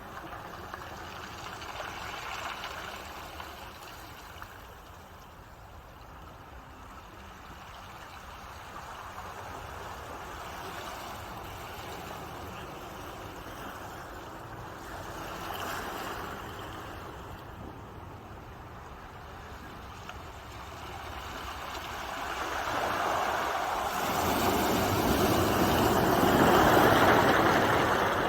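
Ocean waves washing ashore: a steady wash of surf with gentle swells, building over the last few seconds into a louder incoming wave.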